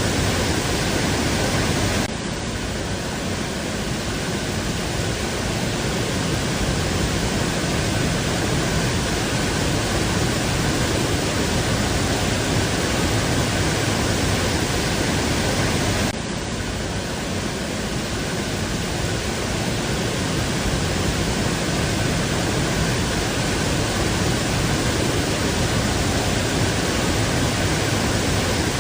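A waterfall pouring with a steady, loud rush of water. The level drops abruptly twice, about two seconds in and again about sixteen seconds in, then climbs back.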